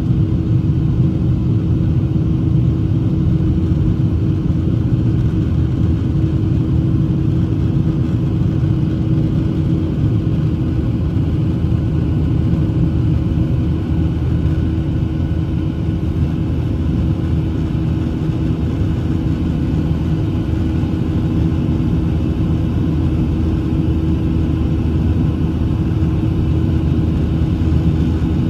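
Jet airliner's engines and airflow heard from inside the passenger cabin during the climb after takeoff: a steady, deep rumble with a constant low hum running through it.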